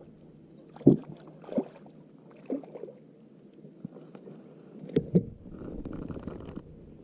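Scattered light knocks and handling sounds in a fishing kayak, with a short steady rustle near the end.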